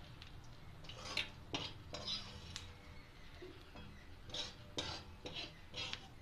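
Metal wire skimmer scraping and clinking against a metal kadhai as fried, puffed gond (edible gum) is scooped out, in scattered short strokes.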